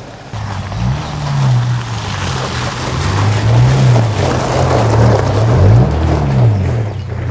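2024 Toyota Tacoma pickup's turbocharged 2.4-litre four-cylinder engine revving as the truck drives over a muddy, stony track, its pitch rising and falling several times, over the noise of tyres on gravel.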